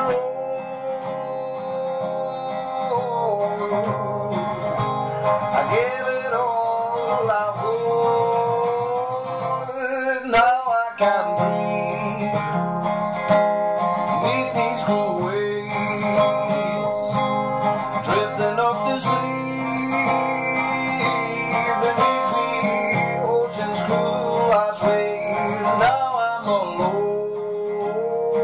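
A man singing to his own acoustic guitar, with a short break in the playing about ten seconds in.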